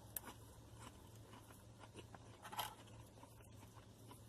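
A person chewing food faintly, with a couple of small crunches, one just after the start and a louder one a little past halfway.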